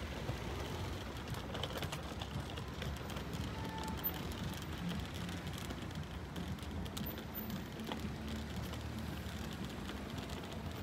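Steady low rumble of a running vehicle, with scattered light clicks over it.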